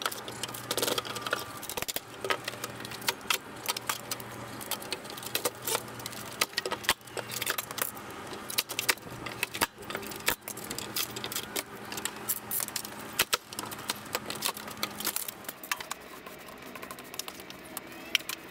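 Scattered metallic clinks, rattles and knocks of work on heavy hardwood pallets with a long-handled steel tool, over a low steady hum that fades out about three-quarters of the way through.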